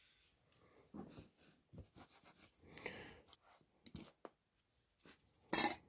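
Faint scratching and small clicks of tweezers worked over the bare metal chassis of a vintage Fleischmann HO shunter locomotive while it is cleaned, with one louder brief rub near the end.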